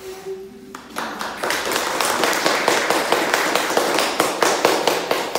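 Audience applauding, starting about a second in and building to a steady round of clapping.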